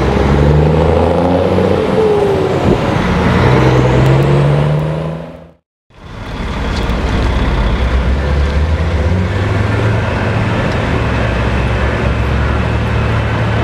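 DAF XF95 530 truck's six-cylinder diesel running with a loud, deep exhaust note as it drives. The sound fades out about five and a half seconds in and fades back in as a steady low engine drone while the truck rolls slowly over the milled road.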